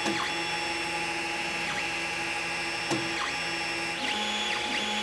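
Creality Ender 2 3D printer printing: its stepper motors whine in tones that jump between pitches as the print head moves, over a steady hum, with quick rising-and-falling chirps in the second half.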